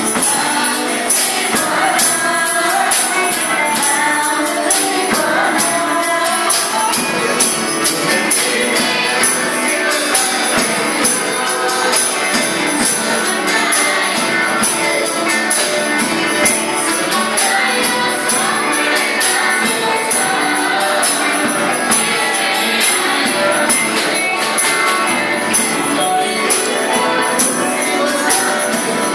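Church worship team performing a praise song: a group of singers with acoustic guitar and drum kit, over a steady jingling beat, sung in Nepali.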